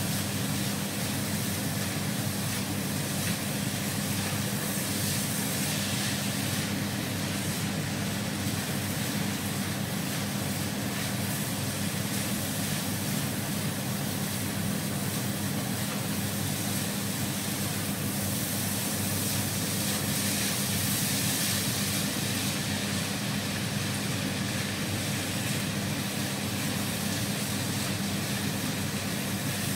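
Fried rice being stir-fried in a nonstick wok on an induction cooktop, under a steady hum and hiss like a running fan.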